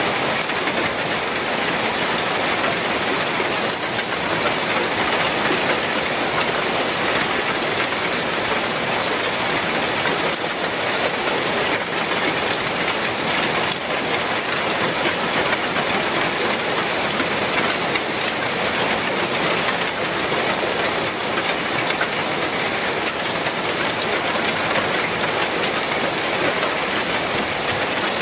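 Heavy rain pouring steadily onto a tile roof and its metal sheeting: a dense, even rush that does not let up.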